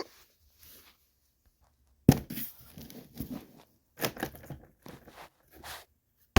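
Quiet for about two seconds, then a sudden knock followed by irregular rustling, scraping and bumping.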